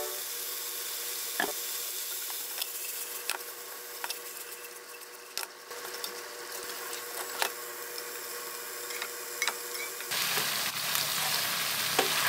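Shrimp and broccoli sizzling in a hot frying pan as seasonings are stirred in, with light clicks of chopsticks against the pan. About ten seconds in, the sizzling turns suddenly louder and fuller as the boiled spaghetti goes into the pan and is tossed.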